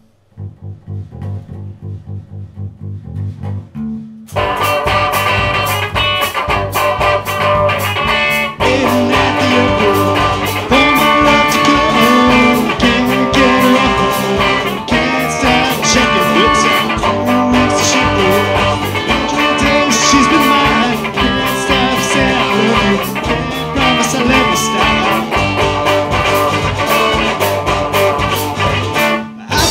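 A live rock band of electric guitars, bass guitar and drum kit plays an instrumental intro. A quieter opening part runs for about four seconds, then the full band comes in loud and keeps going, dropping briefly just before the end.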